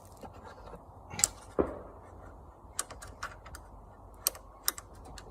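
Scattered light clicks and taps of lawn mower parts being handled and fitted together by hand, with a couple of sharper knocks at about a second and a half and a few more past four seconds.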